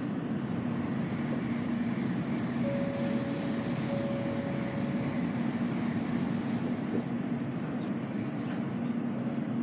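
Steady interior running noise of an N700A Shinkansen car: a low rumble with a faint steady hum. A higher tone sounds for about two and a half seconds a third of the way in, and there are two short hisses.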